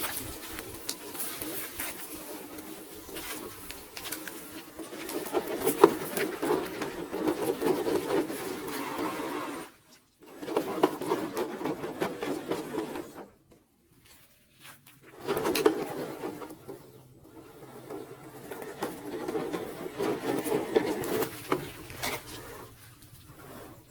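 HB ZP1008 4x4 RC crawler's electric motor and gear drive running in bursts as it is driven over rocks, with clicks of tyres and stones; it stops briefly about ten seconds in and again a few seconds later.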